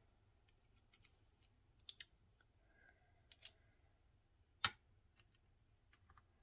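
Faint, scattered clicks and taps from a hand-held knuckle roller being handled, with one sharper tap about four and a half seconds in as it is set down on the metal pan of a pocket digital scale.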